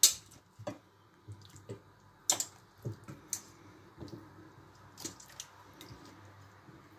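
Hands packing pieces of marinated sheep's head into a stainless-steel pot: wet squelching of the meat, with a few sharp knocks of meat and bone against the metal at scattered moments.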